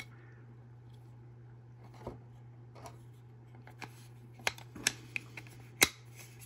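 Small hard-plastic clicks and scrapes as a battery pack is pressed into a snap-fit plastic robot body frame, a handful of sharp ticks mostly in the second half, the loudest near the end, over a steady low hum.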